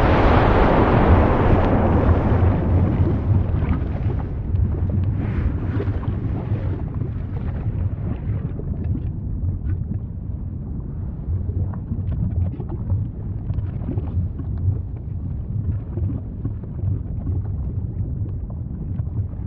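Volcanic eruption rumble: a loud blast of noise fades over the first few seconds into a steady deep rumble, with scattered faint crackles.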